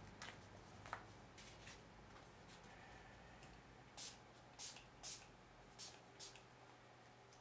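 Small pump spray bottle misting application solution onto a protective film: five short, faint hisses in about two seconds, after some light rustling of the film's paper backing.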